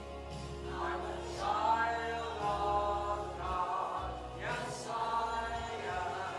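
Choir singing a slow hymn with held notes and musical accompaniment.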